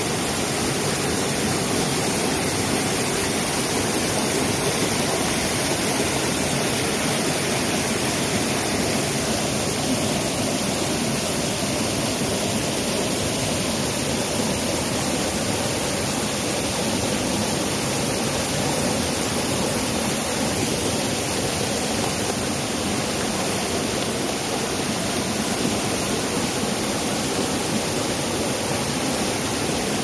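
Small mountain stream pouring over boulders in a short cascade: a steady rush of water.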